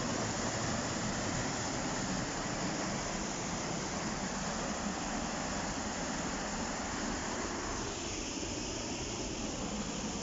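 Steady rush of white water pouring over a small waterfall on the River Lyd.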